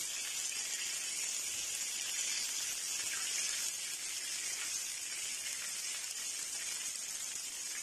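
Water with fried garlic and oil sizzling and bubbling in a hot nonstick frying pan: a steady hiss, the water having just gone onto the hot oil.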